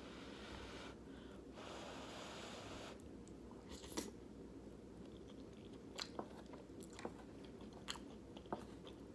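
Close-up chewing of a mouthful of chili and rice, with several sharp mouth clicks in the second half.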